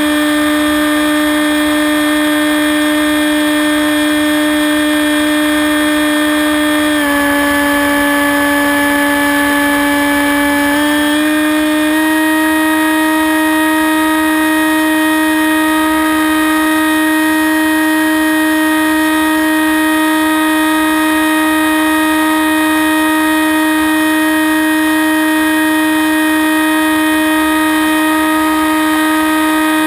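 Hawk Sky electric RC plane's brushless motor and propeller whining at a steady high pitch, heard close up from a camera on the plane. The pitch drops slightly about seven seconds in and climbs back about twelve seconds in as the throttle changes.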